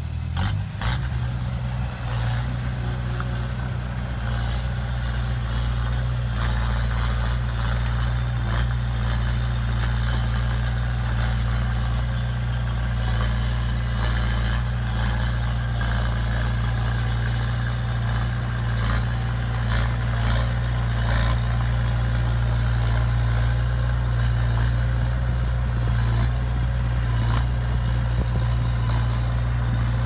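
Komatsu D20A crawler dozer's diesel engine running steadily under load as it pushes soil, picking up revs about half a second in, with scattered clanks and knocks from the tracks and blade.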